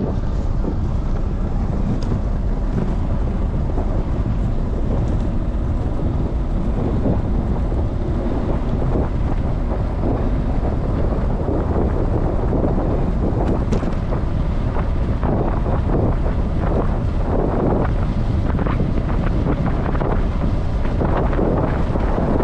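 Wind buffeting a bicycle-mounted camera's microphone while riding, a steady loud rumble, with frequent small clicks and knocks that grow thicker in the second half.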